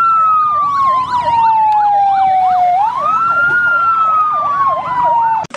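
Fire truck sirens sounding together: one wail climbing quickly and sliding slowly down, twice, over a second siren warbling rapidly up and down, its warble speeding up near the end. The sirens cut off suddenly just before the end.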